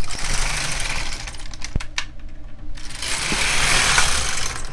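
LK 150 knitting machine carriage pushed across the needle bed twice to knit two rows, a clattering rattle as it works the needles, with a sharp click between the passes as it stops at the end of the bed.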